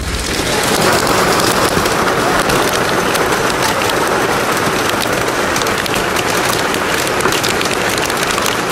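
Heavy rain pelting a car's windshield and body, heard from inside the car: a loud, steady hiss packed with the patter of countless drop impacts.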